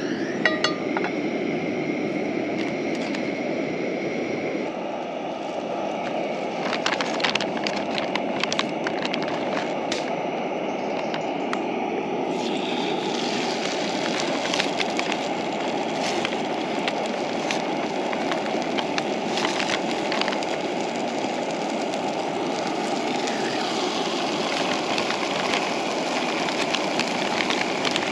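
Gas camping stove burner running steadily under a frying pan, with chicken pieces sizzling in hot oil and scattered sharp clicks and crackles. About twelve seconds in, as meat goes into the pan, the sizzle turns brighter and louder.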